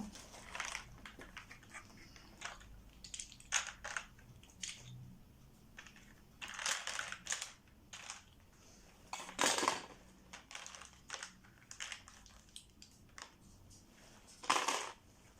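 Scattered small clicks and taps of kit pieces being handled and pressed into place by hand, with a few longer crunching or scraping bursts, the loudest about nine and a half seconds in and near the end.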